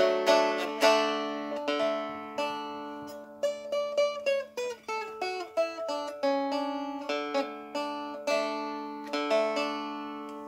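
Walnut-bodied strumstick, a three-string fretted dulcimer tuned D–A–D, played with bare fingers and no plectrum: a plucked melody of quick notes over strings that keep ringing as a steady drone.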